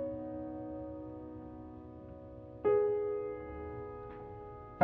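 Background piano music: slow, sustained chords, each struck and left to ring and fade, with a new chord about halfway through.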